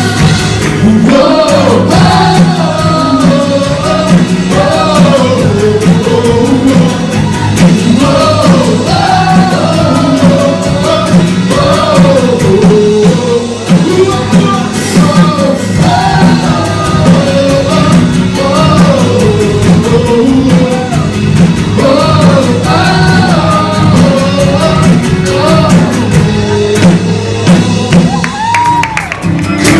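Gospel song playing: a sung melody line gliding up and down over a steady band accompaniment.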